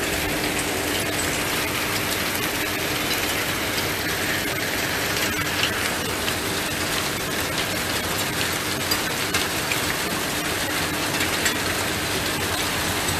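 Hailstorm with heavy rain: a dense steady hiss of rain with many small sharp ticks from hailstones striking the paving. A faint steady low hum runs underneath.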